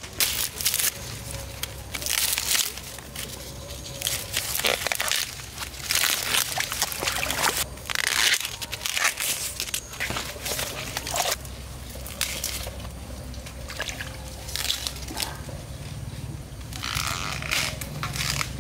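Irregular rustling and sloshing: corn leaves and husks being handled, and feet wading through shallow muddy flood water, over a steady low hum.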